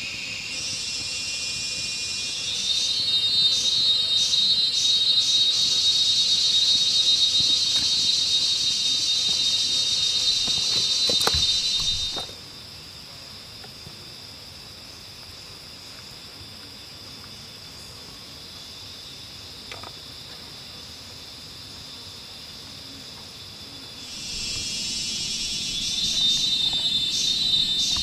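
Cicadas buzzing in a loud, steady, high-pitched drone that cuts off abruptly about twelve seconds in and starts up again about twenty-four seconds in. There is a single sharp knock just before it stops.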